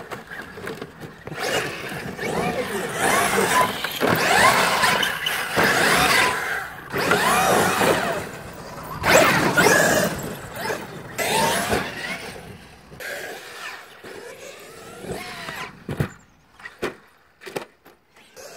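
Radio-controlled cars' motors whining, the pitch rising and falling again and again as they speed up and slow down, with a few sharp knocks near the end.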